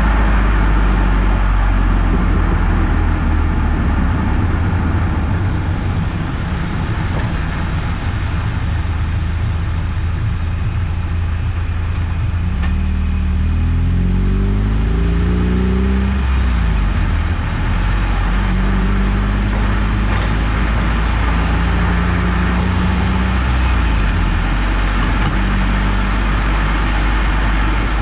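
Eunos Roadster driving on the road: a steady low rumble of engine and road noise, with the engine note rising about halfway through and then holding steady.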